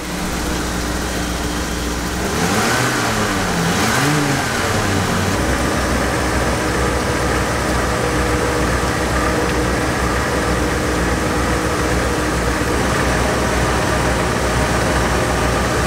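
Motorhome engine revved up and down a few times about two seconds in, then held at a steady raised idle. It is running with the radiator open while rusty coolant is flushed through.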